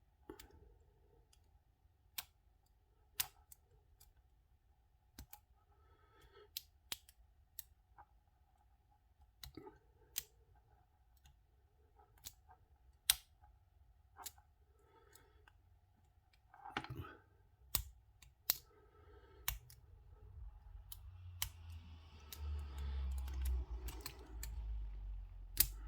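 Lock pick and tension wrench working in the keyway of a brass padlock: sharp, scattered metal clicks, roughly one a second, as the hook pick lifts the pin tumblers, which give little feedback. In the last few seconds, low rumbling handling noise joins the clicks.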